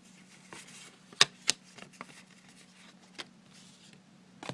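Baseball trading cards being handled and flipped through by hand: a few sharp clicks and snaps of card against card, with light rustling in between, the loudest pair of snaps about a second in.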